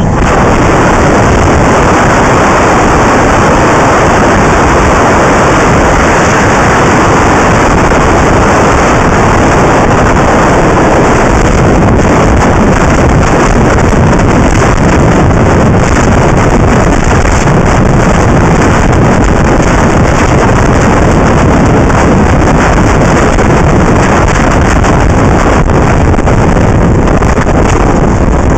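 Loud, steady rush of wind buffeting an action camera's microphone as it moves at skating speed, mixed with the roll of inline skate wheels on track asphalt.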